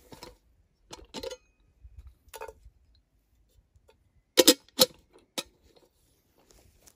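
Metal kettle lid and wire handle clinking: a series of light metallic clanks as the lid is lifted off and set back on and the kettle is handled. The loudest are two quick clanks about four and a half seconds in, then a single one about a second later.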